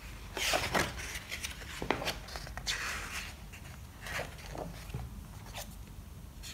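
Pages of a hardcover picture book being turned and handled: a series of short papery swishes and rustles, with a few soft knocks of hands on the book.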